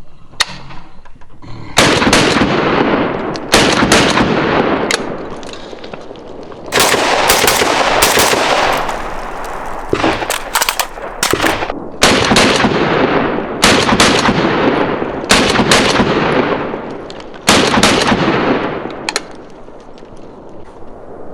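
Firearm shots at a range, about a dozen loud cracks, some in quick pairs, each with a long echo that dies away over a second or two.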